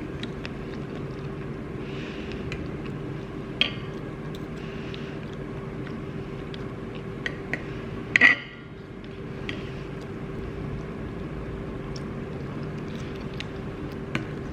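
Steady low drone with a constant hum, a few scattered small clicks, and one loud short clack about eight seconds in.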